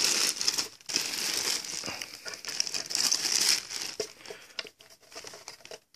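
Clear plastic bag crinkling and rustling as a canister filter is handled inside it and worked out of it. The crinkling is dense and irregular at first, then thins to a few scattered crackles over the last two seconds.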